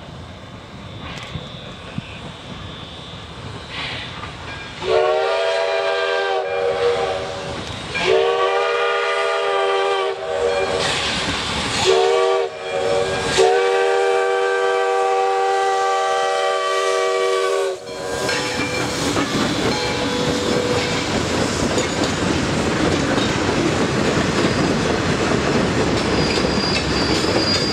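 Steam chime whistle of the Nevada Northern's 1909 Alco 2-8-0 steam locomotive blowing several tones at once in two long blasts, a short one and a final long one, the long-long-short-long grade crossing signal. The approaching train rumbles underneath, and after the last blast its freight cars clatter past close by.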